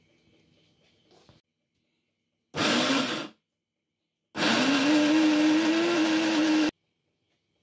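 Electric mini chopper grinding fried dried shrimp, dried chillies, onion and garlic into a bhorta paste, run in two pulses: a short burst, then a longer one of about two seconds. The motor whine rises as it spins up and then holds steady.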